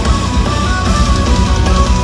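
Folk-metal band playing live and loud over a PA: pounding drums and electric guitars under a fast melody line that steps from note to note.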